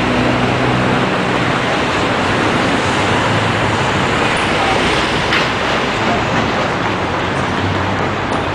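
Steady city street traffic noise: a dense wash of passing vehicles, with the low hum of engines running, most prominent in the first second.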